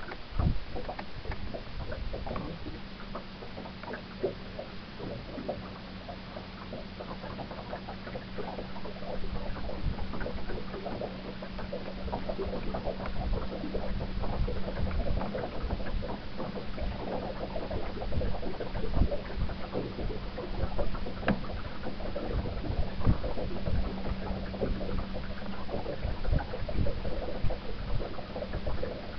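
Electric trolling motor running with a steady low hum, while water slaps and gurgles irregularly against the small boat's hull.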